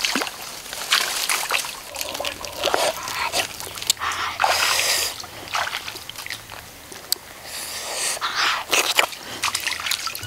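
Shallow muddy water splashing and sloshing as someone wades through it: a run of irregular splashes, with a longer rush of water about four seconds in.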